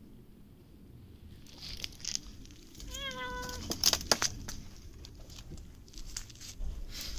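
A cat meows once, briefly, about three seconds in, among scattered short clicks of cats eating.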